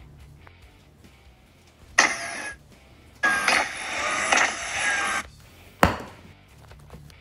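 A toy gun firing: a short burst of hiss, then a longer burst of about two seconds, then a single sharp crack.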